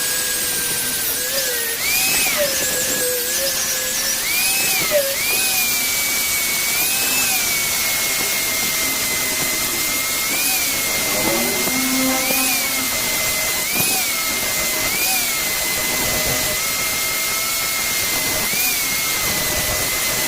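Small high-speed power tool running steadily with a high whine over a steady hiss. Its pitch briefly rises and falls back about ten times as the load on it changes.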